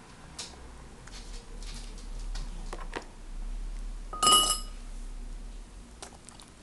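Light clicks and knocks around a baby's high-chair tray during feeding, with one loud, briefly ringing clink about four seconds in, over a low rumble.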